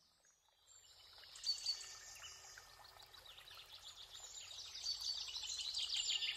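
Baya weaver calling: a dense, rapid chatter of high chirps that fades in about a second in and grows steadily louder.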